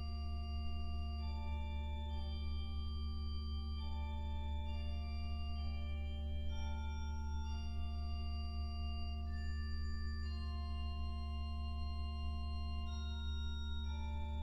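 Klais pipe organ playing a deep pedal note held throughout, under sustained upper notes that change every second or two.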